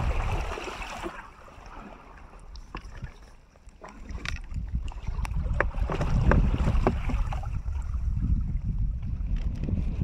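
Wind rumbling on the microphone over moving pond water, with a run of small splashes and drips. It drops for a few seconds, then comes back louder about four seconds in.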